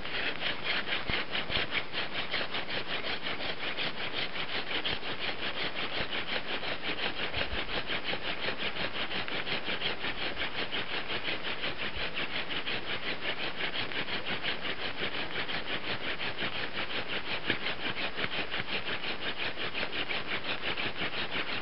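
Wooden hand-drill spindle spun back and forth between the palms, grinding into a wooden hearth board in a fast, even rhythm of rasping strokes. This is fire by friction: the drilling that builds up hot wood dust for an ember.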